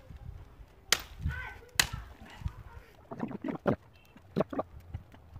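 Two sharp knocks of a hatchet striking a weave of thin withies, about a second apart, followed by softer clicks and rustles as the rods are handled.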